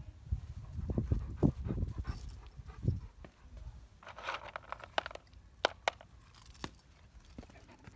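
Bernese mountain dog moving about close by: a few soft thumps in the first three seconds, then a short rustle and scattered light clicks.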